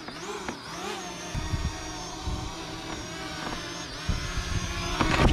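Small camera drone's propellers whining, the pitch wavering up and down as it is steered, with low gusty buffeting that gets louder near the end. The drone's battery is almost flat, which forces it to land on its own.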